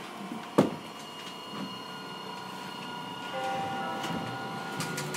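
Hiroden 3900 series tram with a Toyo SiC VVVF inverter pulling away from a stop: a sharp knock about half a second in, then the inverter's steady whine tones. Further tones come in partway through and begin to rise in pitch near the end as the tram starts to accelerate.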